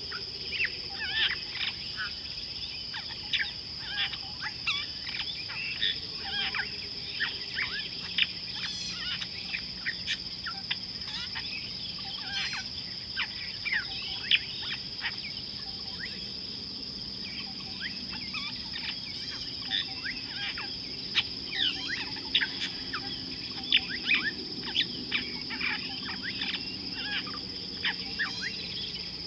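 Frequent short bird chirps and calls, many overlapping, over a steady high-pitched insect drone.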